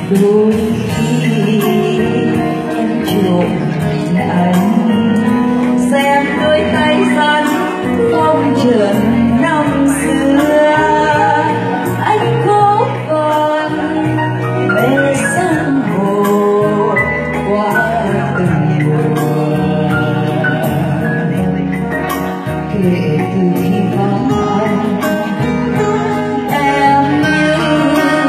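A woman singing a Vietnamese ballad into a microphone, accompanied by guitar and keyboard through the room's sound system.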